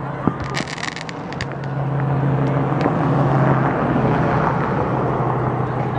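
A vehicle engine hums steadily, its noise swelling over a couple of seconds and then easing off as it passes. About half a second in comes a short run of sharp crackling pops from fireworks in the distance, followed by a few single pops.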